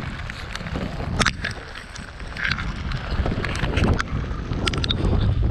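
Wind buffeting the microphone, heard as a steady low rumble, with scattered sharp clicks and knocks from fishing gear being handled on an aluminium boat.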